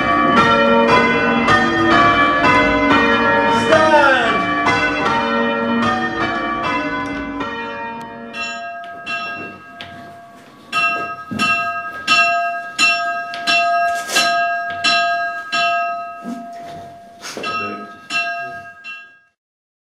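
Church bells rung full-circle in changes, strike after strike with the notes ringing on and overlapping. About halfway through it grows quieter and thins to separate strikes about twice a second, one bell's note standing out, and it stops shortly before the end.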